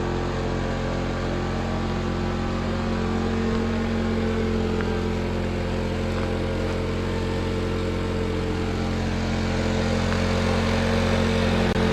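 An engine running steadily at a constant speed, a low hum that holds one pitch throughout.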